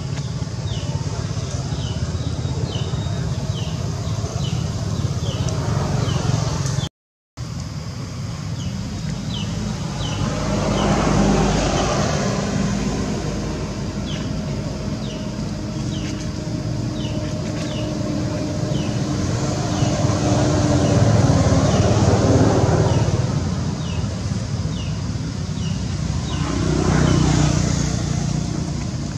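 Steady low rumble of motor vehicles, swelling three times as vehicles pass, with a short high chirp repeating steadily above it. The sound cuts out for a moment about seven seconds in.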